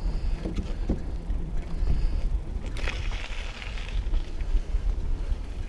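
Wind rumbling on a body-worn camera's microphone while riding a 2016 Giant Trance mountain bike along a gravel rail trail, with a louder burst of hiss about three seconds in.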